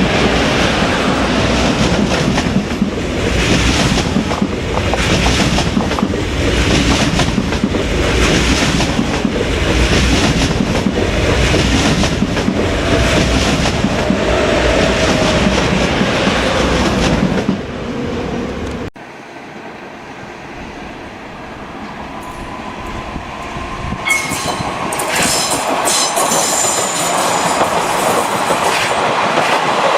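A train running past at close range, its wheels clicking over rail joints in a steady rhythm, until it cuts off suddenly about two-thirds of the way through. Another train then approaches, growing louder, with a brief high wheel squeal near the end.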